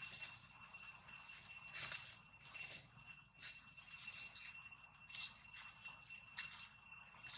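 Steady high-pitched insect trilling from the forest undergrowth, held on two even tones, broken by irregular short crackles about every half second to a second.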